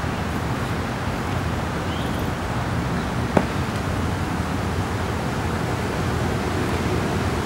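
Steady rushing outdoor background noise, with one sharp click about three and a half seconds in.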